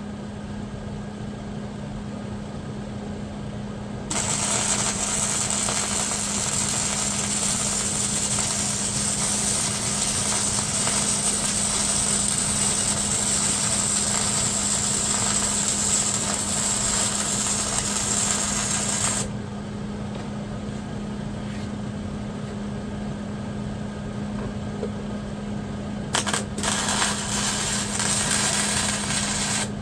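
Welding arc crackling and sizzling in one long steady bead of about fifteen seconds, then a shorter weld of a few seconds near the end that starts with a few sputtering clicks, over a steady low hum.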